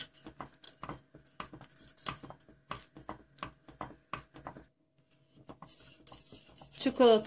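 Wire whisk clinking against the sides of a stainless steel pot as it stirs thick, hot chocolate pudding. It makes an irregular run of sharp taps, several a second, that stops about two-thirds of the way through.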